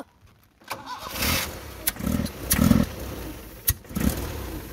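Owner-type jeep's engine being cranked on the starter, turning over unevenly with a couple of sharp clicks, without catching: a fuel pump that is not drawing fuel, as the people trying to start it judge.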